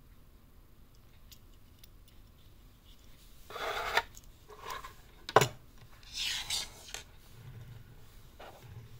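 Gloved hands handling a plastic display case and a die-cast toy car: three short rubbing, scraping sounds and one sharp click a little past the middle.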